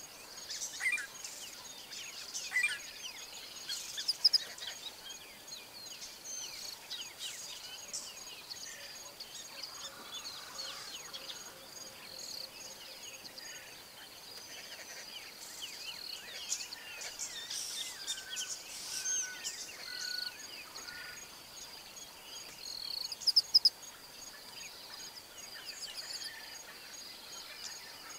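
Bush ambience: many birds calling and singing with short chirps and trills, over a steady high-pitched hum. A few louder quick calls stand out about four seconds in and again near the end.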